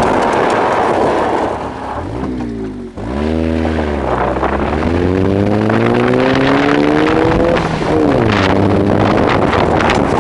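A motor vehicle engine revving under acceleration. Its pitch sinks to a low point about three seconds in, then climbs steadily, drops sharply near the eighth second as with a gear change, and climbs again.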